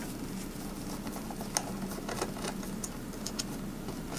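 Screwdriver turning out a small screw beside the input jack on the back panel of an Alesis M1 Active Mk2 studio monitor: scattered light clicks and ticks over a faint steady hum.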